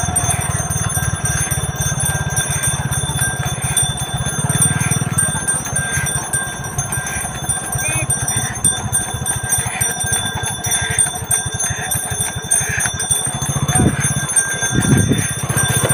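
Pair of Khillar bullocks trotting with a wooden cart on a paved road: neck bells jingling over the steady rumble of the cart, with music playing along.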